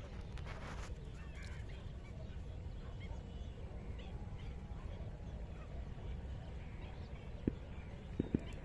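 Waterfowl calling in scattered short calls over a steady low rumble. A few sharp clicks come near the end.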